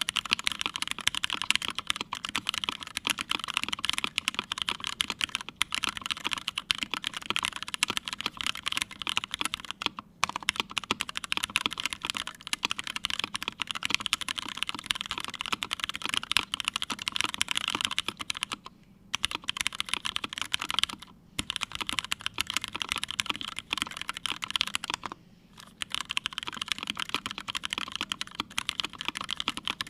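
Fast continuous typing on a custom mechanical keyboard with a full aluminium plate and lubed, filmed Cherry MX Hyperglide Black linear switches under CRP Tulip keycaps: a dense stream of keystrokes, pausing briefly four times.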